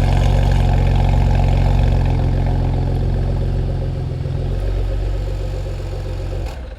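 Porsche Macan Turbo's 3.6-litre V6 idling steadily through its exhaust, easing slightly in level. The engine is switched off near the end and cuts out suddenly.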